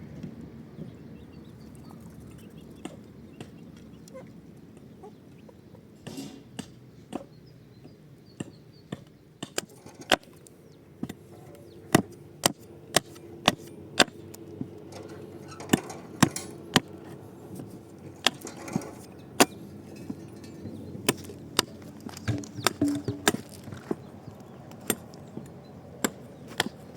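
Repeated sharp knocks or strikes at irregular intervals, a few at first and then about one to two a second from roughly ten seconds in, over a faint steady hum.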